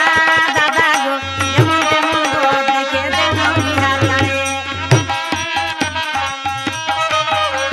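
Instrumental passage of a Bangla Jhumar folk song: a sustained melodic instrument over a busy hand-drum rhythm. About 1.5 s and 5 s in, a deep drum stroke slides in pitch.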